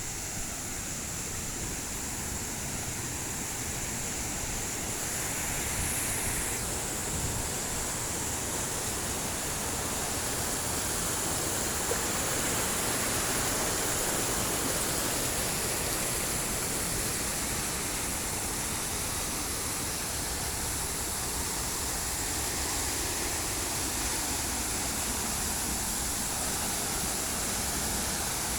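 Waterfall pouring, a steady rushing of falling water.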